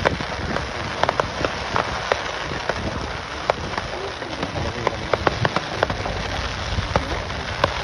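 Aerial fireworks bursting into glittering crackling stars. Many sharp, irregular pops and crackles sit over a steady hiss and a low rumble of distant bursts.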